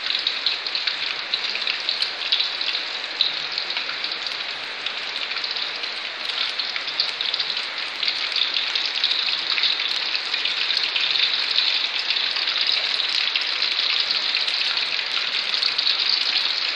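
Tofu deep-frying in hot oil in a wok: a steady sizzle with dense fine crackling.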